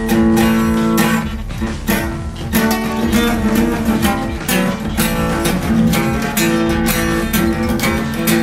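Fender cutaway acoustic guitar picked and strummed with a pick: a quick, steady run of strokes, the chord notes ringing on between them.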